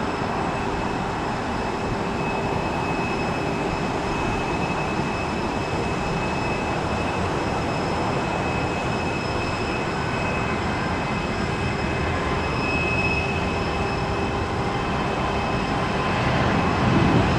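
Airliner jet engines running steadily: a constant rush of noise with a steady high-pitched whine, growing a little louder near the end.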